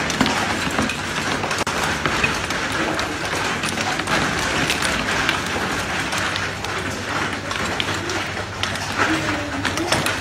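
Heavy rain with hail striking hard surfaces: a dense, steady hiss dotted with many sharp ticks from hailstones.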